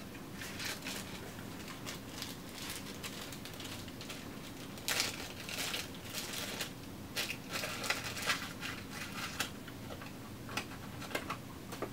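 Plastic wrapping crinkling and rustling in the hands as a telescope eyepiece is unwrapped, in irregular scattered crackles that are busiest about five seconds in and through the second half.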